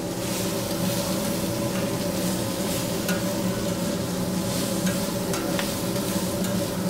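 Spinach sautéing in a hot pan, a steady sizzle with a few light clicks of a utensil stirring against the pan, over a steady low hum.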